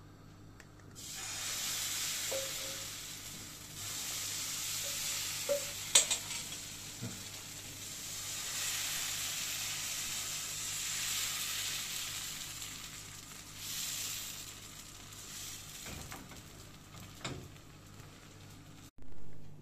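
Thin flour-and-water batter sizzling in a hot oiled nonstick frying pan; the hiss starts about a second in as the batter hits the pan, swells and eases, and stops abruptly near the end. A single sharp clink sounds about six seconds in.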